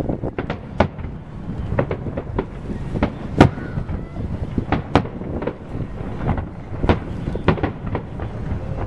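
Aerial fireworks shells bursting in quick succession: a run of sharp, irregularly spaced bangs and cracks over a continuous low rumble, with the loudest bang about three and a half seconds in.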